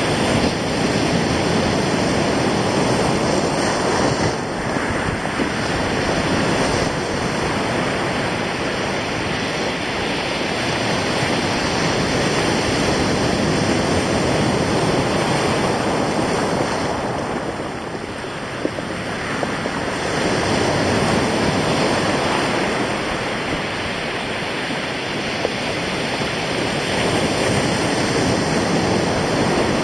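Sea waves breaking and washing on a stony shore, a steady surf noise that swells and ebbs, easing briefly about halfway through. Wind buffets the microphone.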